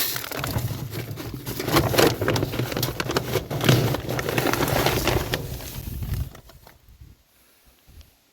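A flock of birds flapping their wings in a dense, clattering flurry that starts suddenly and stops about six seconds in.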